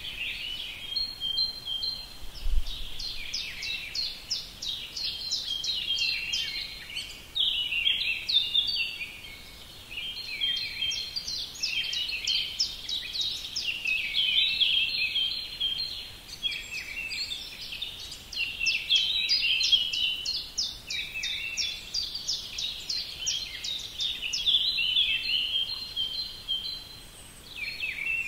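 A chorus of small birds chirping and twittering, with rapid runs of high notes overlapping and going on without a break.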